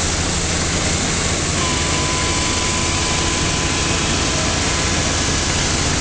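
Heavy engine of horizontal directional drilling equipment running steadily under a continuous hiss of drilling fluid jetting from the drill head. A thin steady whine joins about one and a half seconds in.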